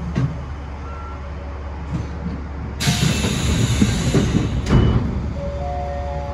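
Stopped electric commuter train with a steady low hum of its equipment. About three seconds in comes a loud hiss of compressed air lasting about two seconds and ending in a sharp click. Near the end a steady electronic tone sounds in two or three pitches.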